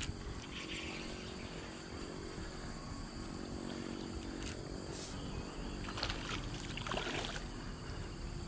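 A hooked pacu being brought to the landing net, with a few short splashes in the pond water, loudest about six to seven seconds in, over a steady outdoor hum.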